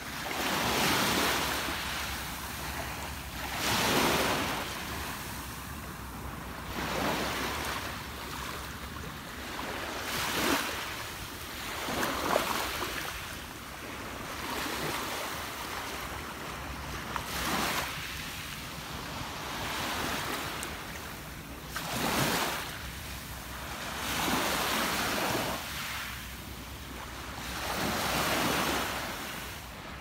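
Small sea waves breaking and washing up a stony shoreline, one swell about every two to three seconds.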